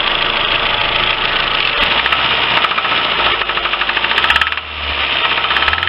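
Four-cylinder petrol engine of a Lifan car running with a rhythmic knock, which a stethoscope check placed in the second and third cylinders. The level dips briefly about three-quarters of the way through.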